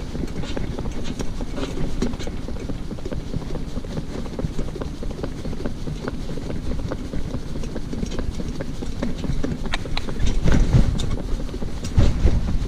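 Shetland pony's hooves clip-clopping on a tarmac road as the harness cart it pulls rolls and rattles along, with a couple of heavier low rumbles near the end.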